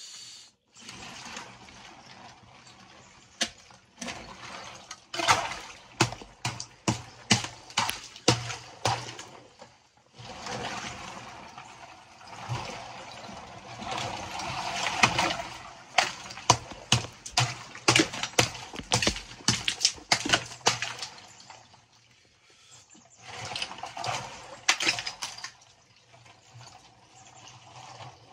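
Claw hammer striking and chipping floating ice in a chest freezer full of icy water: runs of sharp knocks and cracks, with water sloshing and splashing between them as the chunks are broken up and stirred by hand.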